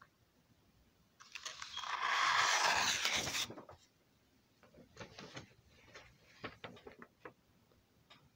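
Sheets of drawing paper rustling as they are moved and swapped: one loud rustle of about two seconds starting a second in, then scattered light crinkles and taps as the sheet is handled.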